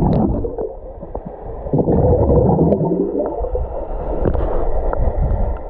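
Pool water gurgling and sloshing, heard muffled through a microphone submerged under water, with the high end cut away. It swells about two seconds in and eases near the end.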